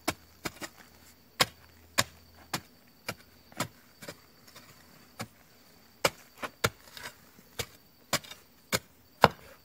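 Small grub hoe (enxadão) chopping into red clay soil while a footing hole is dug. The blade strikes and breaks up clods in a run of sharp, irregular hits, about two a second.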